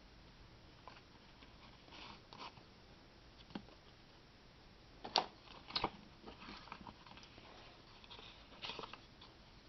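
Faint rustling and tapping of stiff cardstock pages and tags being handled and turned in a ring-bound scrapbook album, with two sharper clicks about five and six seconds in.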